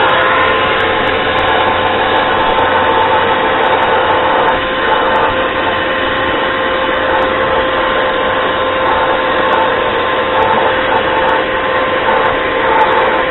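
A small motor running steadily at constant speed, a loud even rush with a steady whine through it.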